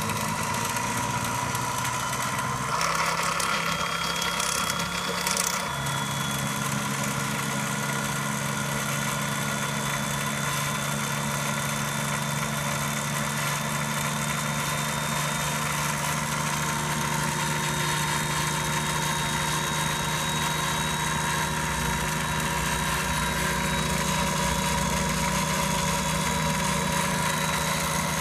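Proxxon bench drill's electric motor running steadily, a low hum with a higher whine over it; the hum shifts slightly in pitch a few seconds in.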